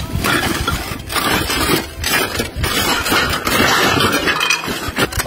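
Hand rummaging through a heap of rubbish: empty paper cement sacks rustling and crumpling, and broken tiles scraping and knocking against each other, in an irregular run of noises.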